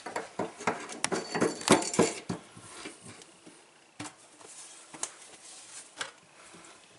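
Faucet parts clinking and clicking as they are handled and fitted back onto a Delta kitchen faucet: a quick run of clicks over the first two seconds or so, then scattered single taps.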